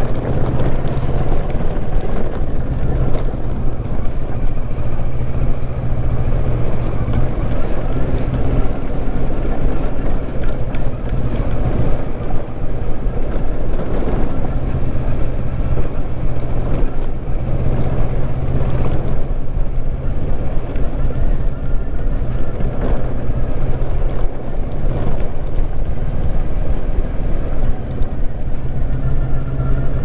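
Kawasaki Versys 650's parallel-twin engine running steadily, heard on board while riding along a dirt road.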